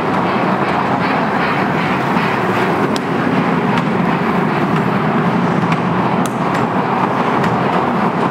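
Small ride-on train rolling past on its track, its wheels clicking lightly and evenly over the rail joints for the first couple of seconds, over a steady background hum.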